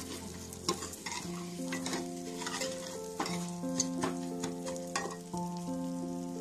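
Metal spoon stirring dalia and moong dal as they roast in ghee in a steel pressure cooker, scraping and clinking against the pot about once a second. Soft background music with held notes plays underneath.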